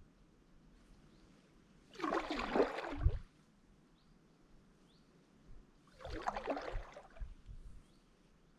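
Two kayak paddle strokes about four seconds apart, each a swish and splash of the blade through the water lasting about a second, the first ending in a dull knock.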